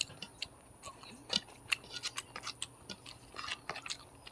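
Mouth chewing Maggi noodles and fried egg: a run of irregular, sharp, wet clicks and smacks.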